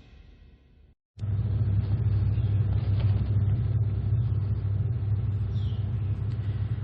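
The tail of a music intro fades out, cut by a moment of dead silence about a second in; then a steady low rumble of background noise begins and holds level.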